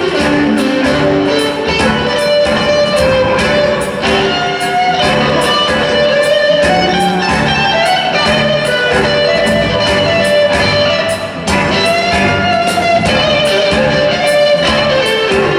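Live electric blues band playing: electric guitars carry lead lines over bass and drums, with cymbals keeping a steady beat.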